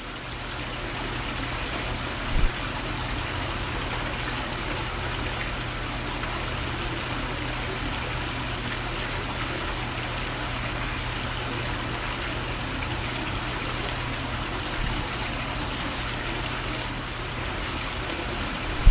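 Steady rushing noise with a low hum underneath, and a single sharp knock about two seconds in.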